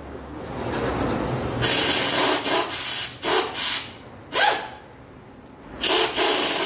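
A ratchet turning the spring bolts on the exhaust flange, heard as several short rasping bursts. The longest burst comes about two seconds in, and shorter ones follow.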